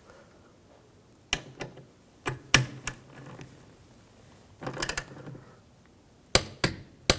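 Sharp metallic clicks and knocks of hand tools on the door latch bolts: single clicks, a short cluster about halfway, and three quick clicks near the end.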